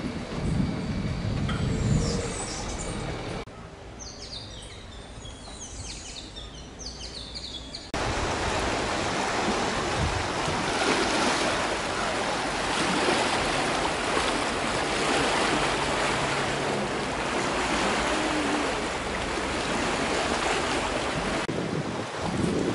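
Outdoor ambience in separate cuts: a few seconds of birds chirping, then a long, steady rushing of surf or wind.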